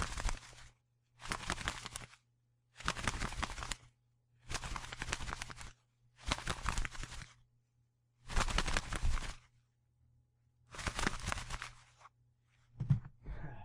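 Bird wings flapping in rapid flurries: about seven bursts, each roughly a second long, with short pauses between, then a couple of shorter flaps near the end.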